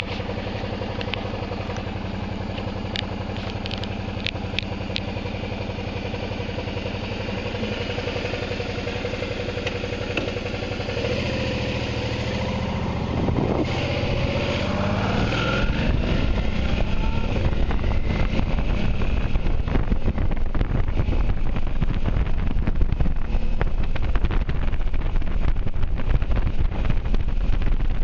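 Motorcycle engine idling steadily, with a few light clicks a few seconds in. About eleven seconds in it revs and pulls away, the pitch rising and falling through the gear changes. From about sixteen seconds, loud wind buffeting on the microphone at riding speed covers the engine.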